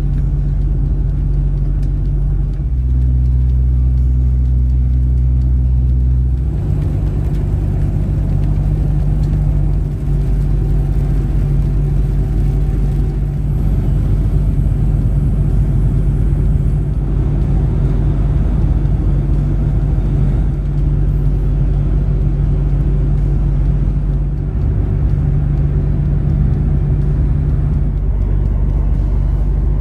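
DAF XG truck's diesel engine running with a steady low drone; its note shifts for a few seconds near the start, then holds steady.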